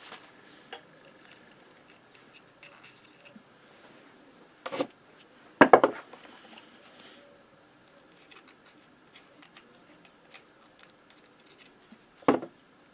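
Small metal engine parts and hand tools being handled on a wooden workbench: light rubbing of a rag and faint ticks, broken by a few sharp metallic clicks and knocks, the loudest around six seconds in.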